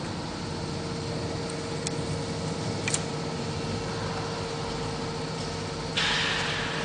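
Steady hum of uPVC window-making machinery running, with a constant tone and a couple of light clicks. About six seconds in, a louder hissing noise starts.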